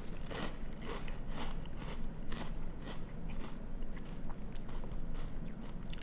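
Someone chewing a mouthful of cinnamon crunch cereal in milk, with crisp crunches about twice a second.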